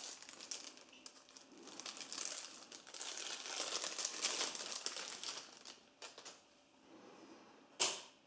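Clear plastic packaging crinkling as it is handled and pulled off a new smartphone, with a single sharp click near the end.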